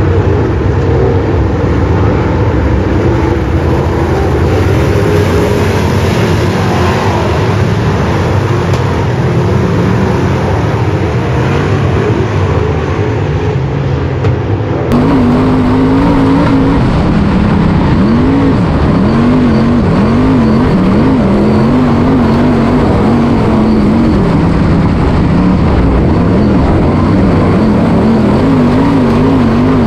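Dirt late model race cars' V8 engines running at slow pace under a caution flag. About halfway through the sound switches to the inside of one car, where its engine note rises and falls in short swells as the driver works the throttle.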